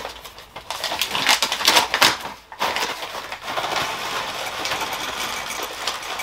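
A paper bag rustling and crinkling as it is handled and opened, then from about three seconds in Kellogg's Pokémon cereal pouring steadily from the bag into a mug of milk.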